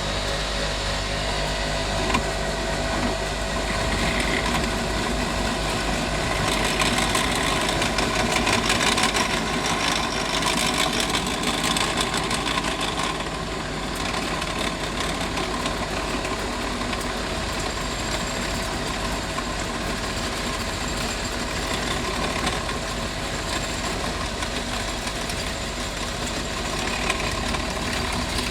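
Homemade metal lathe running steadily at about 300 rpm, its motor and drive humming, before the drill bites into the metal. The sound swells for several seconds near the middle, then settles back.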